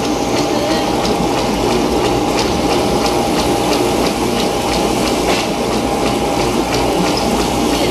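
Working-model Fourdrinier paper-making machine running: a steady mechanical rush of its motor drive, gears and pumps, with a constant whine and light, irregular ticking.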